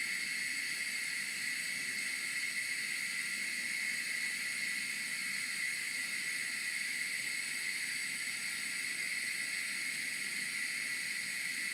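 Gas hob burner hissing steadily on full flame under a small stovetop espresso pot.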